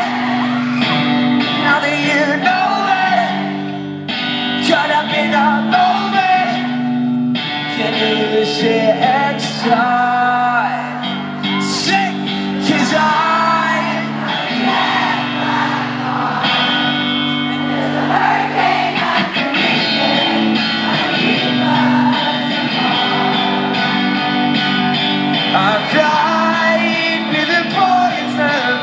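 A pop-rock band playing live through the arena PA, with guitars, bass and drums under a lead vocalist singing, as heard from the audience.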